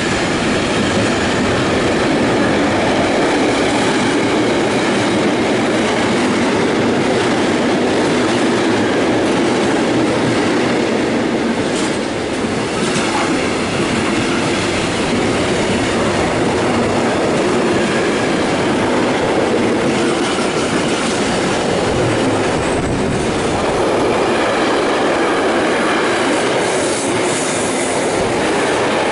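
A train passing close by at speed, its wheels running on the rails with a steady, continuous rumble and some clatter.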